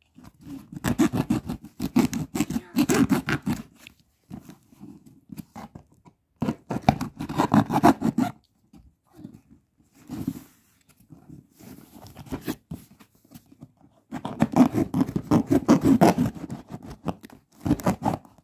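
Taped cardboard box being cut open, in three bouts of rapid, crunchy cutting and tearing strokes with quieter scraping in between.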